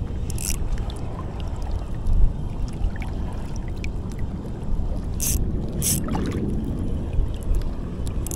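Wind rumbling on the action camera's microphone over moving water, with a few brief high hisses, one about half a second in and two more around five to six seconds.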